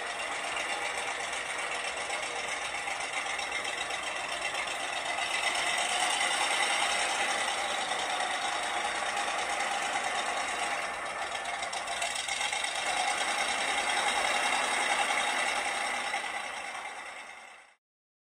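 Mack M125 10-ton truck's LeRoi V8 gasoline engine running steadily, swelling slightly in level now and then, then cutting off suddenly near the end.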